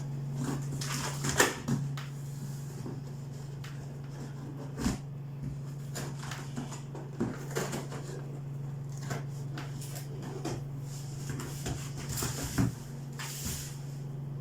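Cardboard laptop box and its packing being opened and handled: scattered short knocks, taps and rustles, the loudest about a second and a half, five and twelve and a half seconds in. A steady low hum runs underneath.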